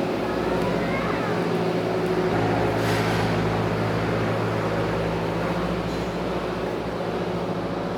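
Steady mechanical hum of running machinery, with a low drone that grows stronger about two seconds in.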